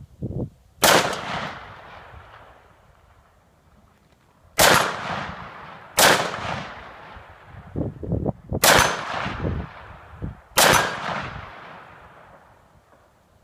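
AR-15 rifle fired five times at an irregular pace, each loud shot followed by a long echo rolling off across open ground.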